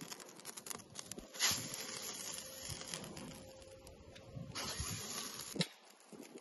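A whole raw duck handled on a round wire grill rack: rustling and light clicks of skin and wire, with a stretch of hiss in the middle.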